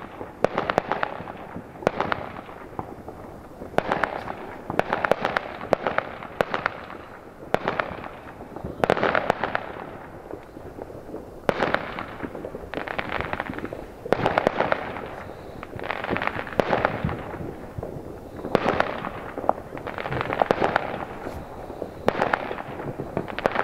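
New Year's Eve fireworks going off: a near-continuous series of sharp bangs and crackles, a fresh cluster every second or two, each trailing off.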